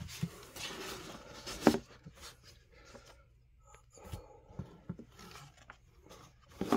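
Pages of a comic book being flipped and handled by hand: a run of paper rustles and light scrapes, the loudest just before two seconds in, then quieter with a few soft ticks.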